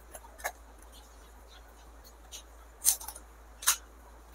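Pani puri being eaten: a few short, crisp crunches of the hollow fried shells, the two loudest in the second half.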